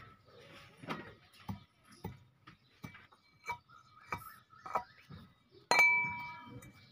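Irregular light clicks and taps of a small knife slitting fresh okra pods over stainless steel plates, some with a short metallic ring. About six seconds in, a louder clink sets a steel plate ringing for about a second.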